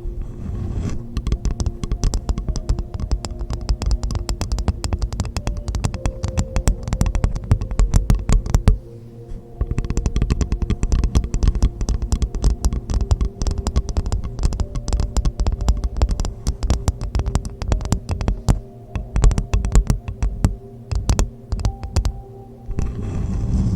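Rapid, dense tapping on a hollow coconut shell, with the shell's hollow ringing tones underneath. The tapping pauses briefly about nine seconds in, then resumes, and near the end gives way to a rushing noise.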